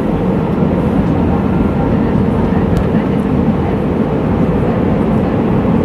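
Steady drone of an Airbus A319 airliner in flight, heard from inside the cabin: an even rush of engine and airflow noise, heaviest in the low range, with a faint steady hum.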